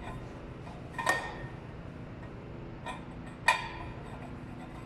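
Two sharp metallic clinks about two and a half seconds apart, each ringing briefly, as removable metal parts of a portable waste-oil burner are handled and set in place.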